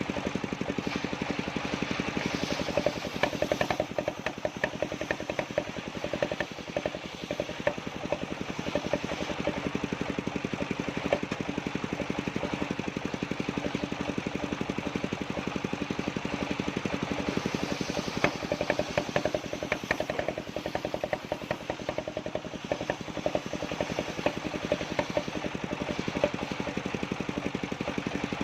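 Engine-driven circular sawmill running steadily, with a rapid pulsing beat and scattered louder knocks.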